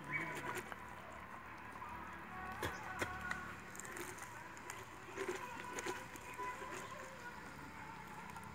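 A hand scooping seeds and stringy pulp out of a hollowed pumpkin: faint irregular scraping and rustling, with a few sharper clicks about three seconds in.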